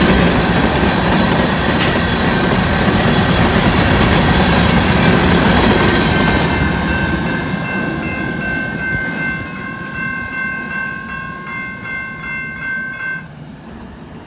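Covered hopper cars of a freight train rolling past on the rails, the wheel noise fading after the middle as the last cars go by. From about halfway a grade-crossing warning bell rings in rapid repeated dings, stopping abruptly near the end.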